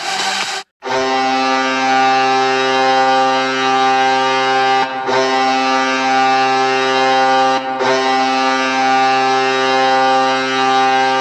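Colorado Avalanche ice hockey goal horn blowing one long, steady chord of several tones. It starts about a second in and breaks off very briefly twice.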